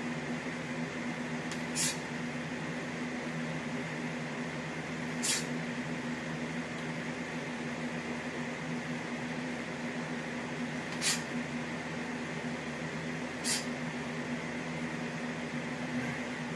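Steady low hum in a small room, broken by four short, sharp sounds a few seconds apart as crescent kicks are thrown.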